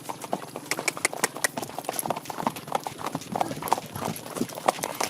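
Horses' hooves clip-clopping on hard ground, many hoofbeats in an uneven, quick rhythm.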